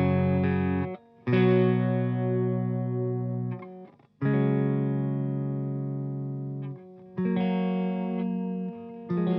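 Electric guitar with Monty's Bethnal Green pickups, played on the neck pickup through a cleanish amp setting: chords strummed and left ringing, each fading away, with short breaks about one, four and seven seconds in.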